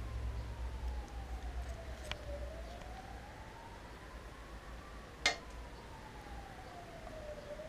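A siren wailing, its single tone slowly falling and rising, one full cycle about every five seconds. A sharp click about five seconds in, and a lighter one about two seconds in.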